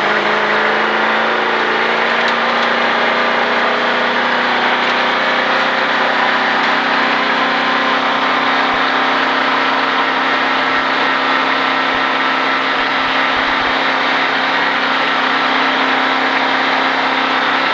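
A NASCAR stock car's V8 engine runs steadily at light, constant throttle in third gear. It holds one even drone throughout.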